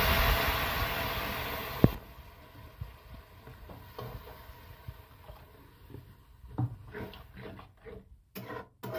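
Water poured into a hot kadai of fried vegetables, hissing loudly, then cutting off suddenly about two seconds in with a click. Afterwards come faint scrapes and taps of a metal spatula stirring the watery vegetables in the pan.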